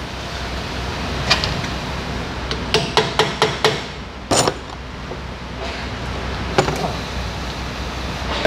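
Sharp metallic clicks and knocks from tools and parts during rear brake work on a car. About three seconds in there is a quick run of five clicks, and single knocks come before and after it, over a low steady hum.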